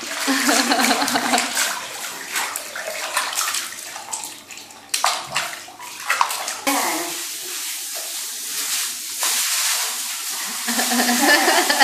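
Water from a handheld shower head spraying over a cat's wet fur and into a bathtub, a steady splattering hiss that grows brighter in the last few seconds.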